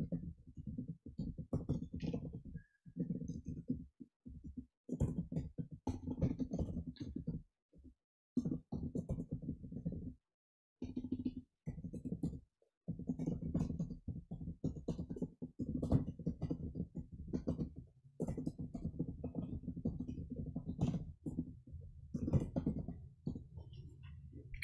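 Typing on a computer keyboard: irregular runs of key clicks and dull thuds, broken by a few short pauses.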